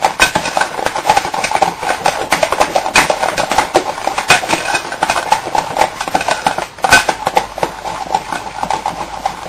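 Electric hand mixer running steadily, its beaters whipping egg yolks, sugar and margarine in a glass bowl, with rapid ticking of the beaters against the glass. The sound dips briefly just before seven seconds in, then resumes.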